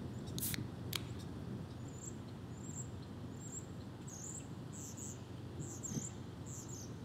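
An aluminium soda can snapped open: two short, sharp hisses about half and one second in. Then small birds give repeated high chirps over a steady low rumble.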